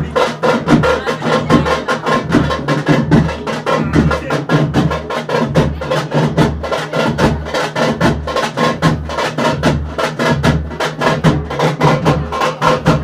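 Loud drumming: rapid, dense stick strokes over a regular deep beat a little under twice a second, with a steady low hum underneath.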